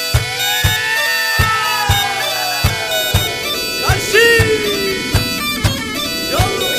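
Background music: an instrumental tune with a sliding, ornamented wind-instrument melody over a steady drum beat of about two strokes a second.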